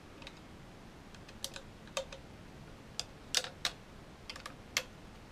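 Irregular sharp clicks and ticks of a small security Torx key working tight screws loose in a battery pack's hard plastic case. Several of the clicks come close together in the second half.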